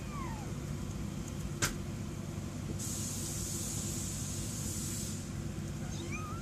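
Young kittens mewing, a faint rising cry near the end, over a steady low background rumble. A soft hiss runs for about two seconds in the middle, and there is a single click about a second and a half in.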